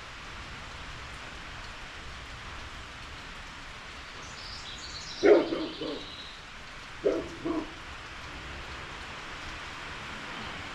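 Steady rain hissing on and around a carport, with a dog barking twice in quick pairs about halfway through and a bird chirping briefly just before.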